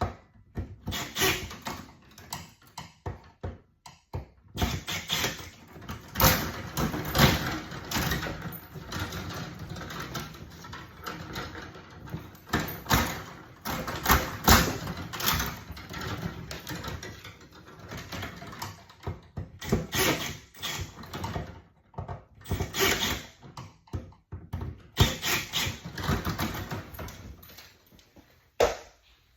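Irregular clicks, knocks and rattles of hand tools and wires being worked loose from a breaker panel, as conductors are undone and pulled out.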